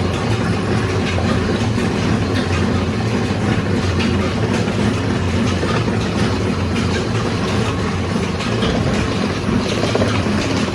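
Motor-driven kohlu oil press crushing mustard seed, running steadily with a low hum.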